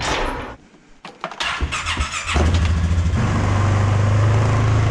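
Four-wheeler (ATV) engine starting a bit over two seconds in, then settling into a steady idle.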